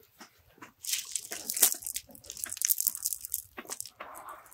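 Wet cast net, heavy with its catch, rustling and crackling in irregular short bursts as it is lifted and dragged over muddy grass.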